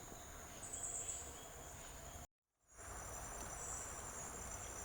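Faint, steady high-pitched chirring of insects in the forest. It cuts out completely for a moment a little over two seconds in, then carries on.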